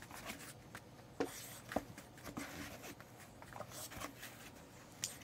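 Faint scattered taps and rustles of a dog-training session, with a few sharper clicks about a second in and again shortly after: a French bulldog moving about and nosing a foam pool noodle on a foam mat while the handler handles treats.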